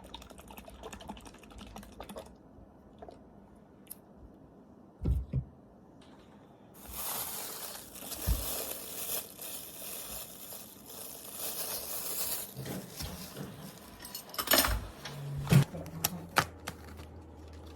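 Small clicks and knocks of objects being handled, with a steady hiss lasting about five seconds in the middle and a few low thumps.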